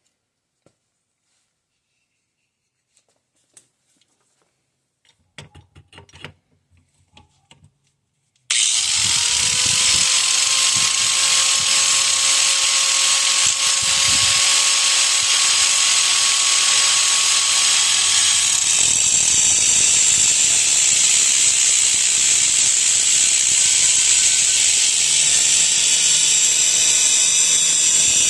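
A few faint handling clicks, then about eight seconds in a small high-speed rotary tool starts with a short rising whine and runs steadily and loudly, cutting off a piece of the governor part that will plug the hole in the engine block.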